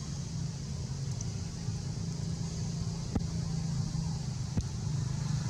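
A vehicle engine running with a steady low hum, with two sharp clicks, about three seconds and four and a half seconds in.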